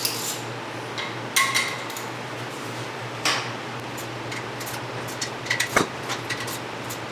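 Hand tools on the motorcycle's rear sprocket nuts: scattered sharp metallic clinks and knocks of wrench and socket on steel, loudest about one and a half, three and nearly six seconds in, over a steady low hum.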